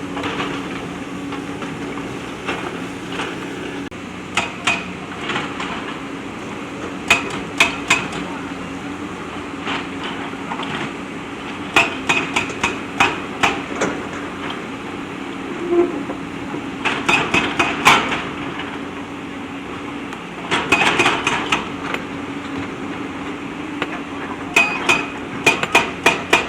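JCB backhoe loader's engine running steadily, with clusters of sharp metallic clanks and knocks every few seconds as the machine works among stones.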